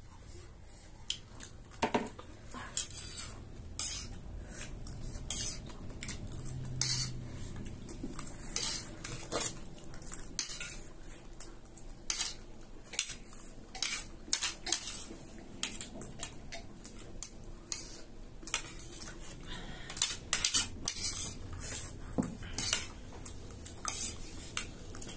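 Small metal spoons scraping and clinking against plates over and over as chatpate is scooped up, a busy run of short taps and scrapes.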